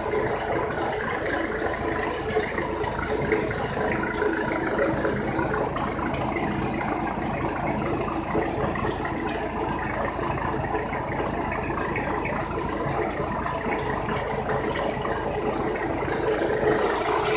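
IMT 558 tractor engine running steadily under load in third gear, pulling a high-speed mower through tall grass.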